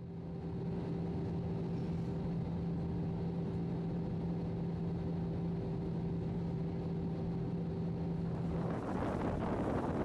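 Steady engine drone with a low, even hum, as heard inside an aircraft cabin. About nine seconds in it changes to wind buffeting the microphone and water rushing past a speeding motorboat.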